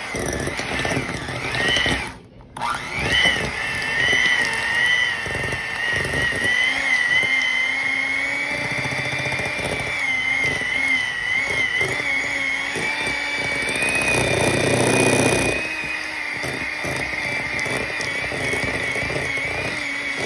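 Electric hand mixer running, its beaters whipping cream cheese in a bowl; the motor's whine wavers in pitch. It cuts out briefly about two seconds in, then starts again, and it gets louder and noisier for a moment about three-quarters through.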